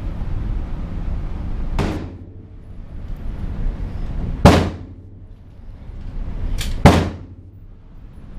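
Gunshots from other lanes of an indoor shooting range: four sharp shots at irregular intervals, the second and fourth the loudest, each echoing briefly off the range walls, over a steady low hum.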